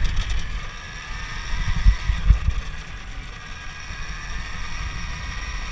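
Alta Redshift MXR electric dirt bike under way on a dirt trail: a steady high whine from the electric motor and drivetrain over a low rumble of wind on the microphone. Two low thumps come about two seconds in.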